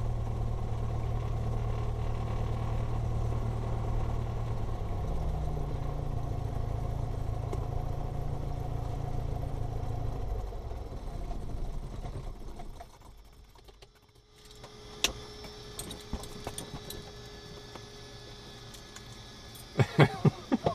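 Cessna Skyhawk's piston engine idling on the ramp, running a little faster about five seconds in, then dying away over a few seconds as it is shut down. Light clicks and handling noises follow near the end.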